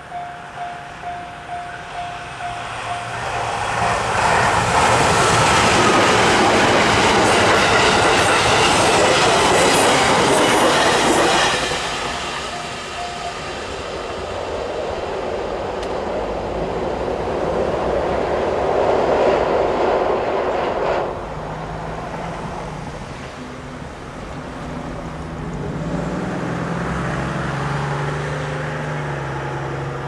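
A JR Kyushu 811 series and 813 series electric train, seven cars, passes at speed with wheels clacking over rail joints and traction-motor noise, for about eight seconds from a few seconds in. A level-crossing warning bell rings steadily through the first half. The train then recedes, its running noise fading to a low hum.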